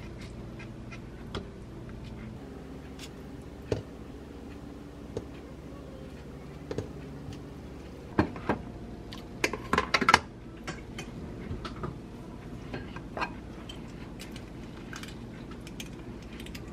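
Light taps and knocks of kitchen handling: cut apple and fig pieces being set into a wooden bowl of granola, with a cluster of sharper knocks about eight to ten seconds in, over a steady low hum.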